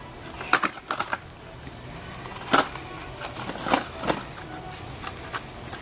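Scattered sharp clicks and clacks of packaged fishing lures being handled on a store display, over a low steady hum.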